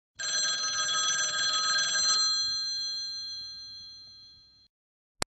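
A telephone bell ringing: the bell rattles for about two seconds, then rings on with clear high tones and fades out. A single sharp click comes near the end.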